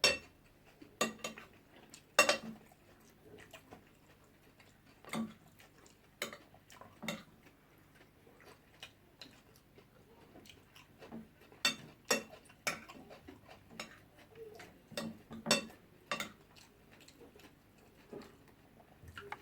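Cutlery clinking and scraping against plates during a meal, in short, sharp clicks at irregular intervals, a few of them louder than the rest.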